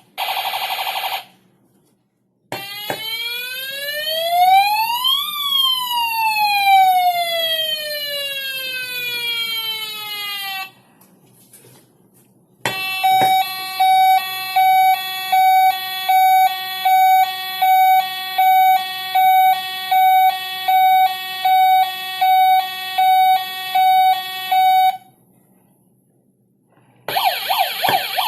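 A toy ambulance's electronic siren sounds, played one after another. A fast warble gives way to a long wail that rises for about three seconds and falls slowly. After a click comes a hi-lo two-tone siren alternating about one and a half times a second, and a fast warble starts again near the end.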